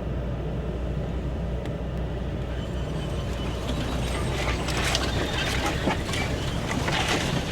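Ford Raptor pickup crawling along a narrow trail, heard from inside the cab: a steady low engine and tyre rumble. From about three seconds in, brush and branches scrape and crackle irregularly along the truck's sides.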